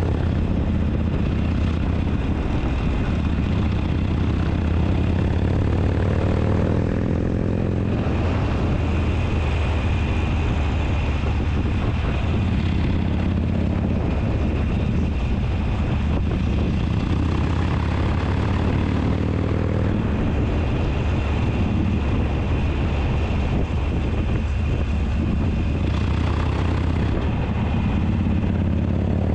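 Motorcycle engine running steadily at speed with rushing wind noise. It climbs in pitch as it accelerates at about 5 seconds in and again near the end.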